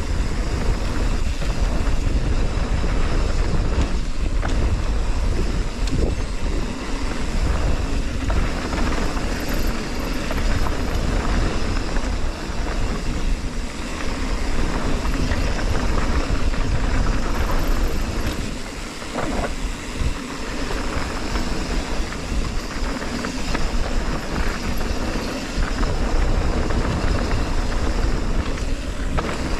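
Mountain bike descending a trail at speed, heard from a camera on the rider: wind rushing over the microphone with the tyres and bike rumbling and knocking over the rough ground. It eases briefly about two-thirds of the way through.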